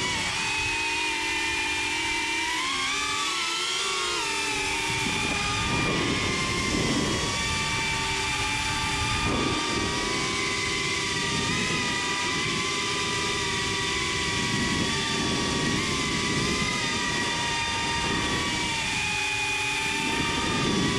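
Small FPV drone's electric motors and propellers whining, recorded on board, the pitch rising and falling with the throttle.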